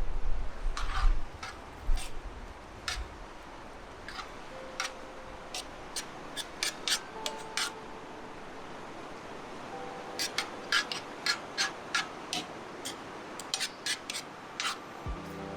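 Sausage, peppers and onion frying on a skottle griddle: a steady sizzle with irregular sharp pops and crackles of spitting fat.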